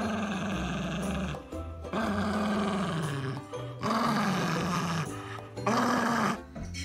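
Small white fluffy dog growling in four long, drawn-out vocalizations that rise and fall in pitch, with short gaps between them. Background music plays underneath.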